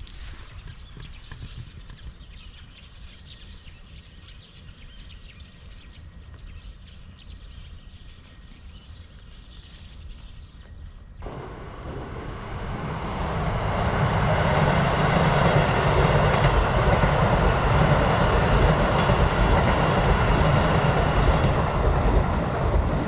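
A train running past. Its noise comes in suddenly about halfway through, swells over a couple of seconds and stays loud and steady to the end, after a quiet stretch of low outdoor rumble.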